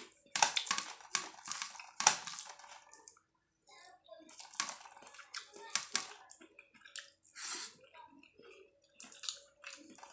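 Wet squelching and smacking in irregular bursts: fingers mixing rice with mixed-vegetable curry on a steel plate, and eating it.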